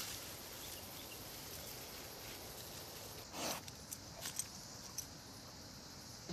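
Faint, steady hiss of bush ambience with a brief rustle about three and a half seconds in, followed by a few light crackles of footsteps on a leaf-littered dirt track.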